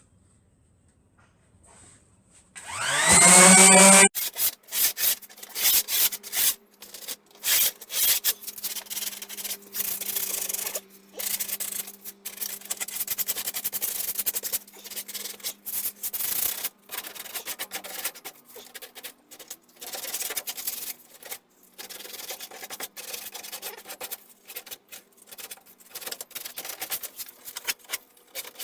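A power sander starting up about two and a half seconds in, its motor pitch rising as it spins up, which is the loudest moment, then running steadily while it is worked over the painted wooden fence in uneven strokes. It lightly scuffs the old paint rather than stripping it.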